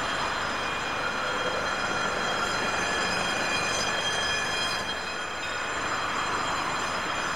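Cars passing over a tram level crossing on a wet road, their tyre noise swelling and fading, under several steady high-pitched tones that run throughout.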